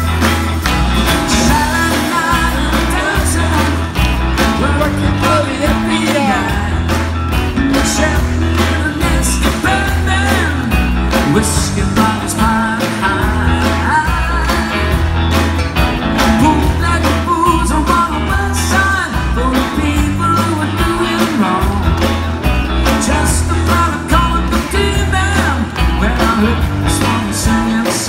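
Live rock band playing a rock-and-roll song, with electric guitars, drums and a male lead vocal over a steady beat, heard from among the audience.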